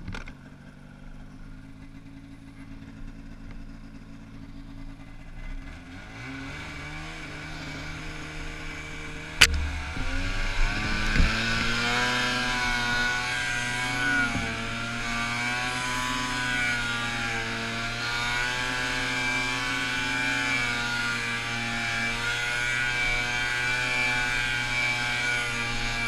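An Arctic Cat 600 mountain snowmobile's two-stroke engine idles steadily, then revs up as the sled pulls away. It then runs on at varying revs as it ploughs through deep trail snow. A sharp click sounds about nine seconds in.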